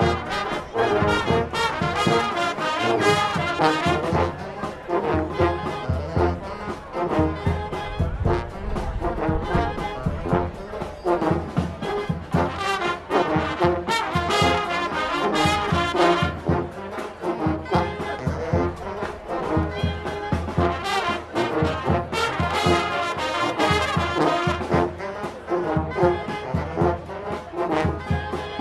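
Marching band playing a brass piece: trombones and trumpets carry the music over repeated drum hits.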